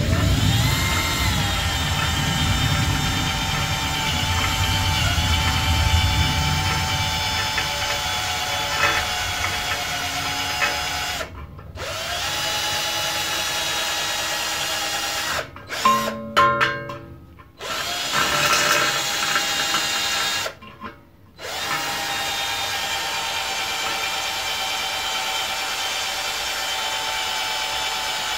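Cordless drill on low speed spinning a small pointed rotary burr, grinding out a drilled hole in sheet metal. The motor whines steadily, stopping briefly and starting again a few times.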